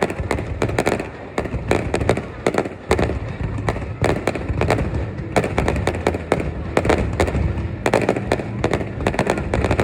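Aerial fireworks display: a dense barrage of bangs and crackles, several a second without a break, over a continuous low rumble.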